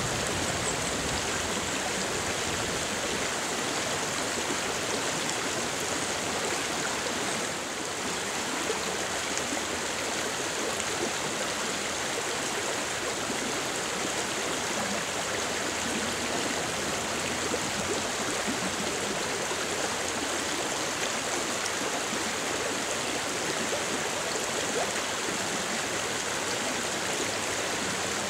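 Steady rush of flowing creek water.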